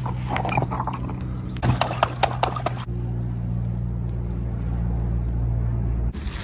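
Water from a hose filling a pineapple-shaped squishy toy as its skin swells, a steady low rushing that cuts off near the end. In the first few seconds there are handling noises and a few sharp clicks as hands press the toy.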